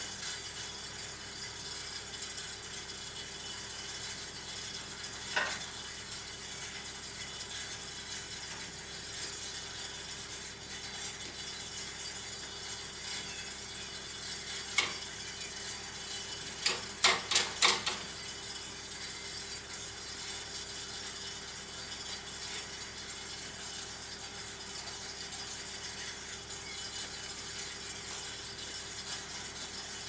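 Steady background hiss with a faint hum, broken by a few single sharp clicks and, a little past halfway, a quick run of about five sharp clicks.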